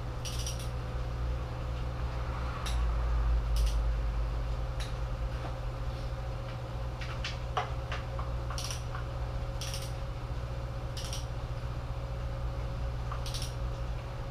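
Click-type torque wrench on oil pan bolts: short sharp clicks, a second or a few seconds apart, as each bolt reaches its light 11 ft-lb setting. A steady low hum runs underneath, with a brief low rumble about three seconds in.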